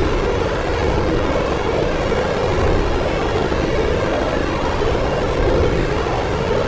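Dark ambient space drone: a steady, noisy rumble with a band of sound in the lower middle that slowly swells and eases every second or two.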